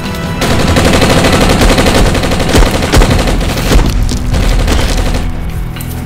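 Sustained automatic gunfire, a rapid unbroken string of shots that starts about half a second in and eases off near the end.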